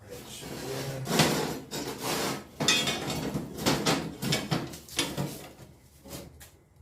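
Steel angle iron and metal tools being handled on a bench: a run of irregular metallic clinks, knocks and scrapes, dying down near the end.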